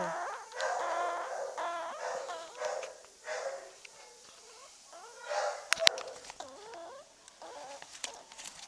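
An animal whining in a series of short, wavering cries, with a sharp knock about six seconds in.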